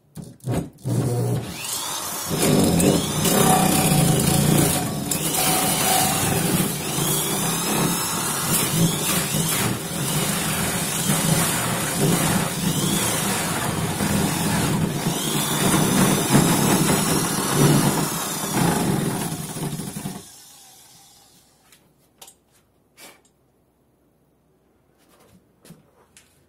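Electric drill driving a Hole Dozer hole saw through the plastic and foam wall of an ice chest. The motor's pitch rises and falls as the teeth bite, for about twenty seconds, then it stops, followed by a few light knocks.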